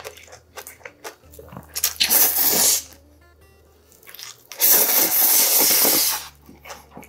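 Chewing with small wet clicks, then two long loud slurps of cold spicy bibim-myeon noodles, about two seconds in and again from about four and a half seconds.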